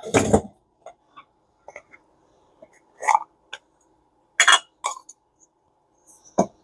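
Scattered clicks and knocks of small hard objects being handled and moved about, as in rummaging through reel parts. A faint steady hum runs underneath.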